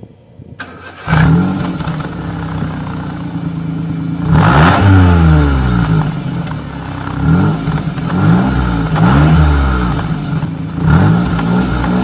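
Maruti Suzuki Alto 800's small three-cylinder petrol engine running through an aftermarket dual exhaust tip. It comes in about a second in, idles, and is revved several times, each rev rising and falling, the biggest near the middle.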